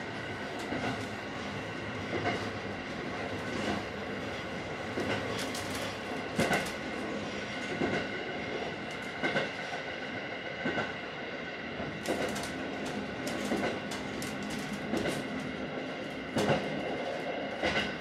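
Inside a JR Hokkaido diesel railcar (KiHa 40/KiHa 150 series) under way: the steady running noise of the train, with sharp clacks at irregular intervals as the wheels pass over rail joints.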